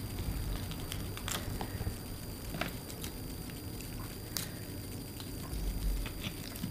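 Eating sounds of shellfish: a few scattered sharp clicks and cracks of shells being broken and chewed, with soft wet squishing, over a low steady background hum.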